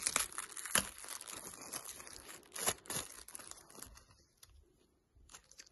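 Thin plastic packaging bag crinkling and crackling as it is torn open and a clear phone case is pulled out, with sharper crackles about a second in and again near three seconds. It dies down after about four seconds.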